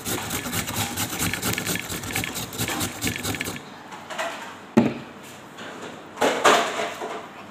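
Carrot being grated on a round stainless-steel hand grater: rapid, even rasping strokes that stop about three and a half seconds in. Then comes a sharp knock, and a short scraping as carrot shreds are scraped off the grater.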